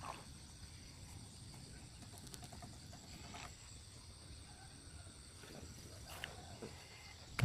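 Faint rustling in dry straw and grass as an eel-trap tube is worked out of a pile of straw, over a steady high-pitched insect drone and a low rumble. A sharp knock comes right at the end.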